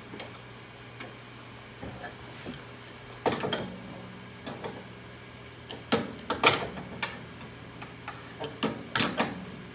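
A handful of separate metallic clicks and knocks as nuts are tightened onto the bolts that hold a RIMS tube's tri-clamps to a stainless steel table.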